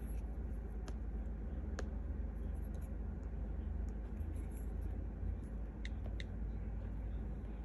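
Steady low background rumble with a few faint, sparse light taps, typical of a stylus tapping on a tablet screen; two taps come close together about six seconds in.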